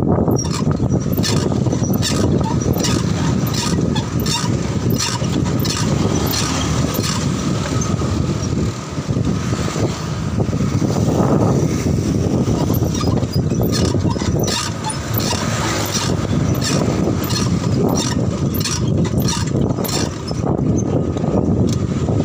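Wind rushing and buffeting on a handlebar-mounted camera's microphone while riding a bicycle, with frequent irregular clicks and rattles from the bike jolting over the road. Street traffic swells briefly about eleven seconds in.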